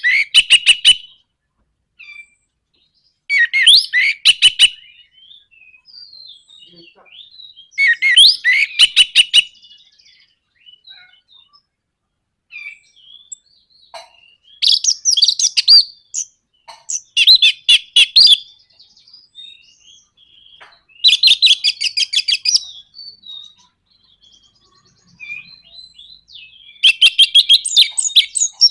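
Orange-headed thrush singing in loud phrases a few seconds apart, each a quick run of whistled notes broken by a rapid, dry rattling stutter: the 'nraktak' call used as a lure to set other birds singing.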